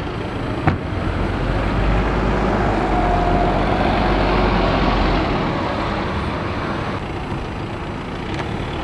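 Single-deck diesel city bus pulling past close by, its engine rumble swelling and then easing off as it goes by.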